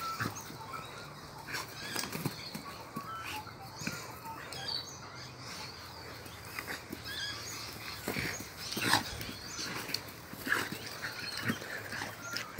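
A dog making playful vocal sounds as it shakes and tosses a rag toy, with several louder short, sharp sounds in the second half.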